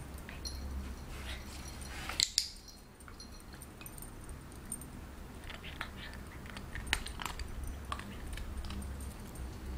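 Toy poodle's claws ticking lightly and unevenly on a tile floor as it moves about, with two sharp, louder clicks close together about two seconds in.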